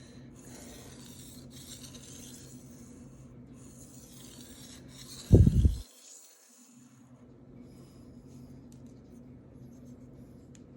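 Knife blade being drawn across a Shapton Rockstar 1000-grit whetstone in long grinding strokes, a steady high hiss that pauses briefly between strokes and stops about seven seconds in. A short loud thump about five and a half seconds in, then faint clicks.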